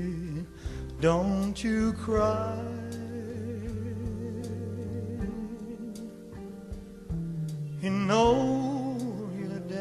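Music: a slow song with sustained melody notes that waver in pitch, swelling about a second in and again near the end.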